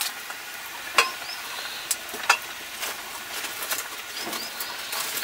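Water poured into a hot wok of wild taro curry sizzling and bubbling steadily over a wood fire, with a few sharp clicks and knocks scattered through, the loudest about a second in.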